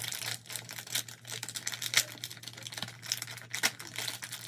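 Crinkly blind-bag packaging of a mystery Squishmallow being crinkled and pulled open by hand: irregular crackling with a few sharper crackles, the loudest about two seconds in.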